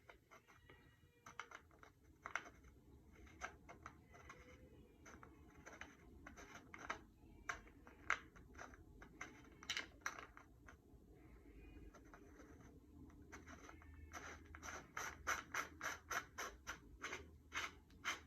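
Small Phillips screwdriver driving the battery-cover screw back into a lightsaber hilt: scattered scratchy clicks and ticks, coming faster, several a second, near the end.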